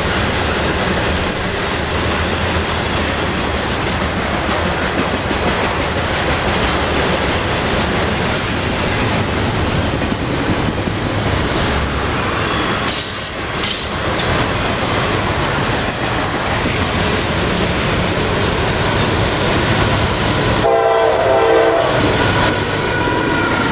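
Norfolk Southern freight train passing close, a steady heavy rumble with wheels clicking over the rail joints. Near the end a locomotive horn sounds briefly.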